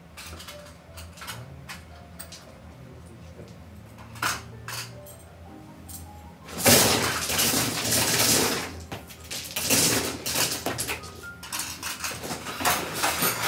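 Mahjong tiles clattering on an automatic mahjong table. A few single clicks as tiles are set down, then from about six and a half seconds in a loud, dense clatter as the tiles are swept into the table's central opening for shuffling, thinning into scattered clicks.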